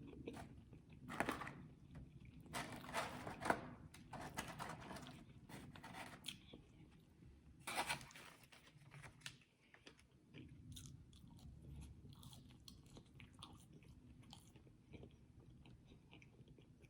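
Close-miked chewing and crunching of food, with a few louder crunchy bites in the first half, then quieter chewing.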